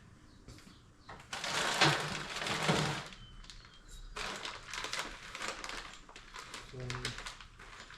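Plastic packaging crinkling and rustling as pressure-washer parts are unpacked by hand, loudest in a burst between about one and three seconds in, then lighter rustling and small clicks.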